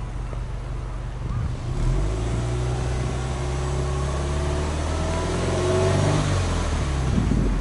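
Subaru Impreza WRX STi's turbocharged flat-four boxer engine, heard at the exhaust, free-revved from idle. About two seconds in the revs rise and are held, climbing slowly, then fall back toward idle near the end.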